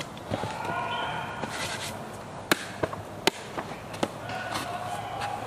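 A few sharp knocks, the two loudest about a second apart near the middle, with fainter clicks around them.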